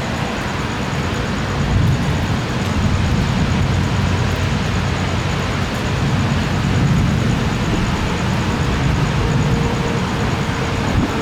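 Steady rush of thunderstorm rain and gusty wind, with a low rumble that swells and fades as the gusts hit.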